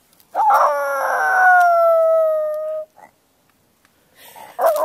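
Miniature Pinscher howling: one long, high howl of about two and a half seconds that slides gently down in pitch, then a second howl beginning near the end.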